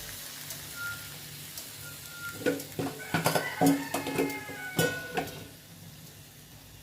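Sambal terong sizzling in a frying pan while a spatula stirs it, knocking and scraping against the pan in a quick run of clanks from about two and a half to five seconds in.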